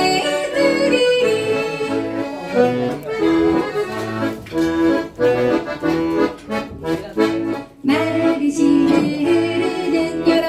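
Accordion playing an instrumental passage of a yodel song, with a steady bass-and-chord beat. There is a run of short, clipped chords in the middle and a brief break just before the music picks up again near the end.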